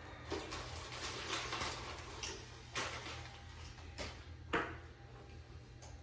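Flat-pack furniture parts and hardware being handled: a run of scraping and rustling, then several sharp knocks and clatters, the loudest about four and a half seconds in, over a steady low hum.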